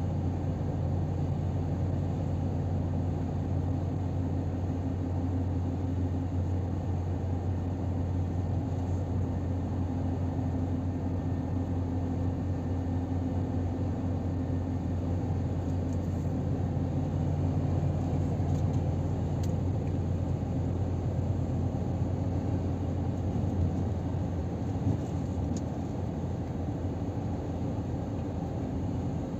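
Scania R500 truck heard from inside the cab while cruising on a motorway: a steady low engine hum with road and tyre noise.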